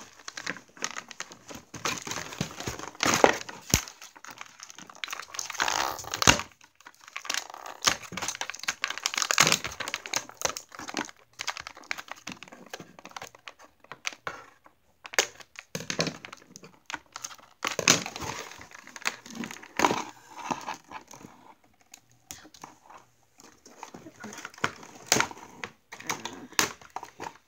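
Clear plastic doll packaging crinkling and rustling in irregular bursts as a fashion doll is unboxed by hand.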